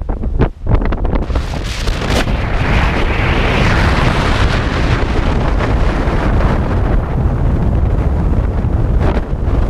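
Strong wind buffeting the microphone with a heavy, constant low rumble. Over it a rushing hiss of breaking surf swells up a couple of seconds in and fades away.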